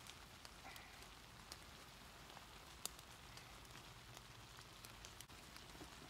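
Faint, scattered patter of water drops falling from the wet tree canopy after rain, sounding like light rain, with one sharper tick about three seconds in.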